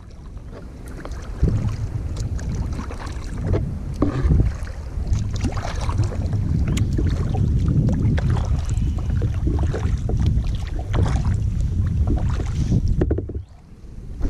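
Wind buffeting the microphone with a heavy, gusting rumble, over the splashes and drips of kayak paddle strokes in the water. It drops away briefly near the end.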